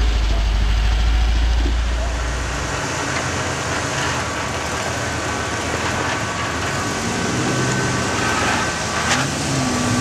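Off-road vehicles on a rock trail: a deep engine rumble for the first few seconds, which cuts off abruptly. Then a Jeep's engine runs at crawling speed as it climbs a rock ledge, with a sharp knock near the end.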